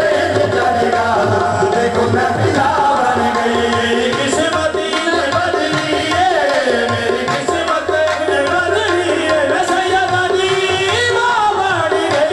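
Qawwali: male voices singing a bending melody over harmonium, with tabla drums keeping the rhythm throughout.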